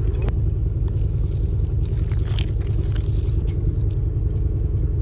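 A loud, steady low rumble with a fluttering texture.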